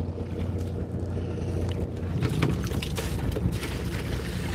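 Fishing boat's engine running steadily, a low hum with a faint higher tone above it, with a few small knocks on deck partway through.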